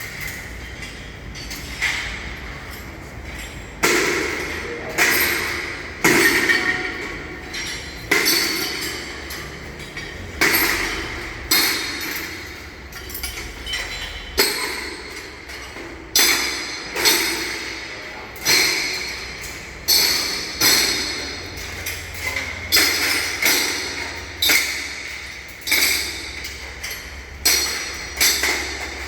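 Steel scaffolding being dismantled: repeated metallic clanks and knocks, roughly one a second, each with a short ring.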